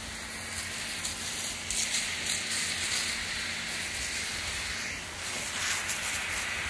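Fire hose nozzle spraying a jet of water: a steady hiss that gets louder about five seconds in.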